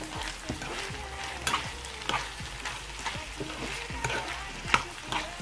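Diced potatoes and minced meat sizzling in a frying pan, stirred with a metal spoon that clicks and scrapes against the pan now and then.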